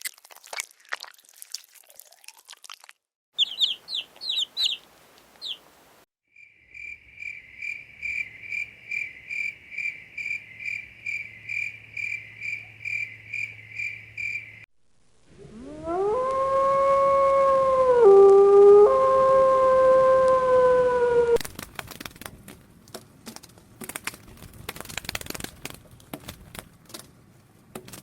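A string of different farm animal sounds. It opens with crunchy clicking, then a few short high calls, then a long run of steady, evenly pulsed high chirping. The loudest part is a long call that dips in pitch partway and comes back, followed by scattered clicks.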